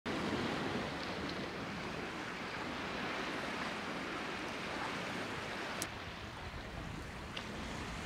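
Steady rush of sea waves and wind, with one sharp click about three quarters of the way through.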